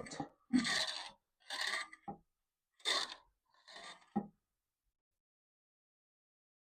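Yamaha TT600R front fork leg, freshly filled with 10W fork oil, being pumped by hand to push the trapped air out: four strokes about a second apart, stopping a little past halfway.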